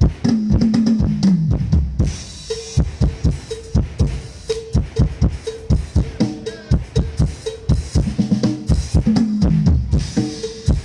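Drum kit played in a sound check: a steady kick-and-snare beat, with fills running down the toms just after the start and again near the end.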